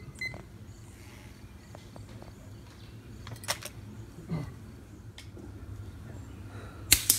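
Air rifle shots on a field target range: a few sharp, brief cracks over a low steady background, the loudest two close together near the end.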